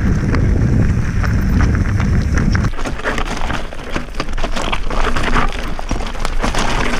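Mountain bike riding fast down a rocky trail: tyres crunching over loose stones and the bike rattling in a dense run of clicks and knocks. A deep rumble underneath drops away about three seconds in.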